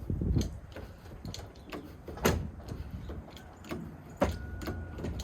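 Metal clunks and knocks from the cab of a 1968 International Transtar cabover being tilted forward on its hinges, with the gear shifter working through the floor. The two loudest knocks come about two seconds in and about four seconds in.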